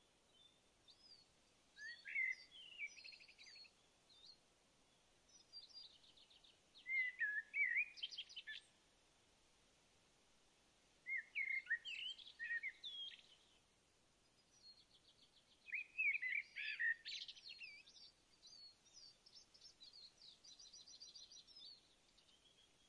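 Songbird singing: short warbling phrases repeated every four to five seconds, followed by a fast trill of repeated notes near the end.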